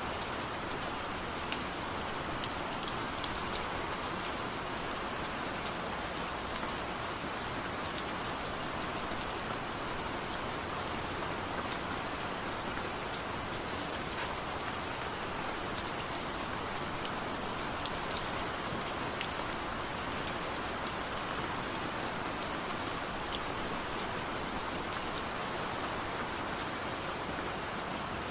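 Steady rain falling, with the ticks of individual drops striking close by scattered all through.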